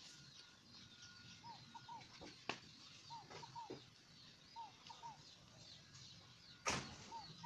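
Faint birds chirping and calling in the background, with repeated short paired notes. A single sharp click comes about two and a half seconds in, and a louder brief crack near the end.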